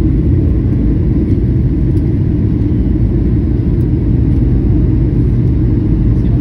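Airliner cabin noise: a steady low rumble of jet engines and rushing air.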